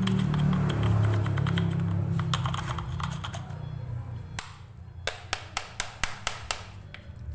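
A low hum fades out over the first few seconds. Then comes a run of sharp, evenly spaced taps or clicks, about three a second.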